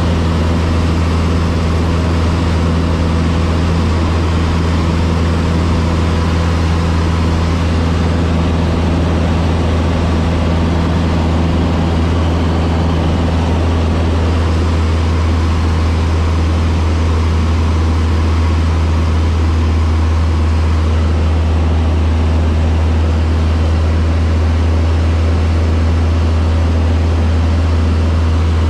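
Cessna 152's four-cylinder Lycoming O-235 engine and propeller droning steadily at a constant setting, with no change in pitch.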